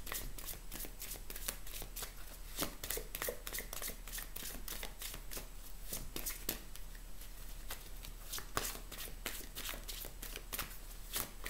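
Deck of large oracle cards being shuffled by hand: a continuous, irregular run of light card-on-card clicks and slides.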